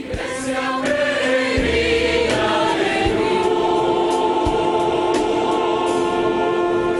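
Mixed choir with orchestra performing Bolivian mission music, singing long held chords over a few low thumps about every second and a half.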